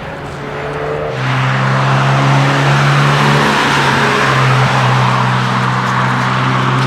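A car's engine driving past at a steady note, jumping suddenly louder about a second in and staying loud.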